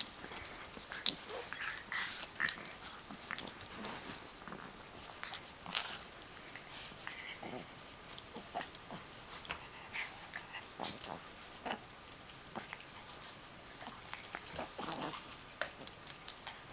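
Bulldog and pug puppies playing: scattered clicks and scuffling sounds, with a few short whines.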